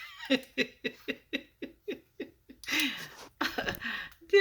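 A person laughing in a quick run of short ha-ha pulses, about four a second, then a couple of breathy sounds.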